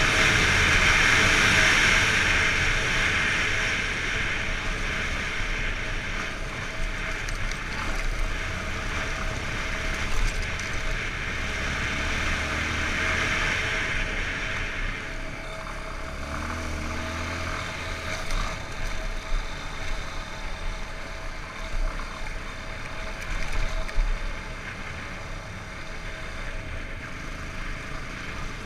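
Yamaha XTZ 250 Lander's single-cylinder engine running on the move, mixed with wind rushing over the camera microphone. A few sharp knocks stand out in the second half.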